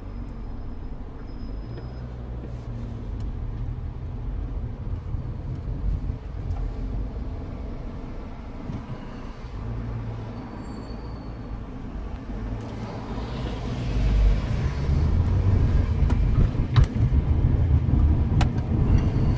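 Car engine and tyre noise heard from inside the car while driving, a steady low rumble that grows louder about two-thirds of the way in.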